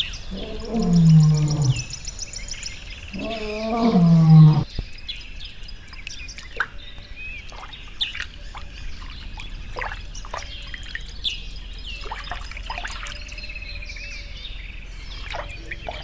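A lion gives two loud, drawn-out calls, each falling in pitch, in the first five seconds. After that the calls stop suddenly and birds chirp in short, scattered calls.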